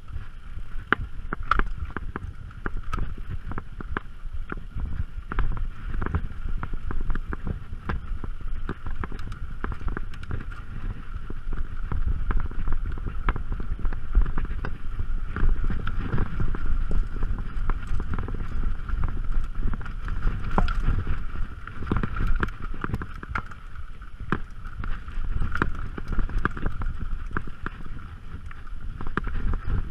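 Mountain bike riding over slickrock and a rocky, dusty trail, heard from a camera on the rider: wind rumbling on the microphone, with frequent clicks and rattles of the bike and tyres on rock.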